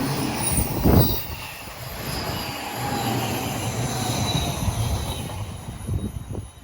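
Odakyu Line electric train passing close by: a steady rumble of wheels on rail with a faint high squeal, loudest in a burst about a second in, then dying away near the end.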